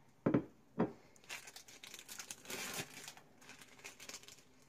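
Two sharp knocks, then about three seconds of thin plastic wrapper crinkling and tearing as a slice of processed cheese is unwrapped.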